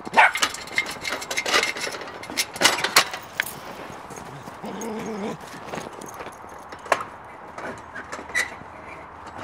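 Shetland sheepdogs playing in snow: scuffling and rustling with scattered clicks, and one short dog whine about five seconds in.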